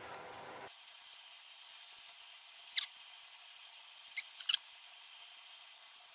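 Whipped cream being squeezed from a piping bag: a few short, high squeaks over a faint steady hiss, about three in all.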